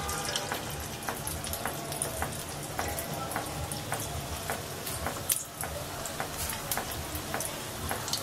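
A fish pakora of kachki fish in batter frying in deep hot oil: a hiss that starts suddenly as it goes into the oil, with scattered crackling pops throughout.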